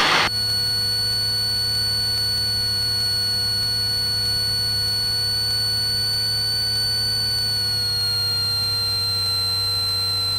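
A steady, high-pitched electronic tone over a low hum in a small plane's cockpit audio, dipping slightly in pitch near the end.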